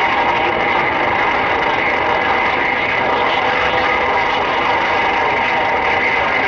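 CB radio hissing with steady static from its speaker: an even rushing noise that holds at the same level throughout.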